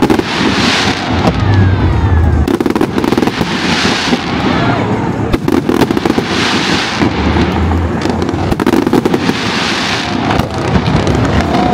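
Fireworks display going off continuously: dense bangs and crackling, with a surge of hissing, crackling sparkle about every two and a half seconds and a few faint whistles of rising shells.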